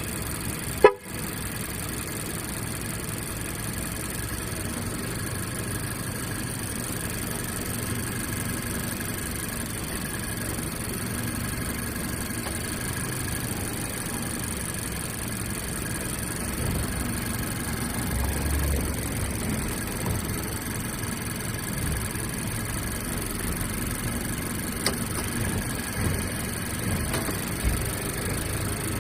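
2018 Mazda CX-5 engine idling with a repetitive 'dadadada' knocking noise, a noise that shows only while the engine is cold and goes away about ten minutes after starting. A single sharp click about a second in.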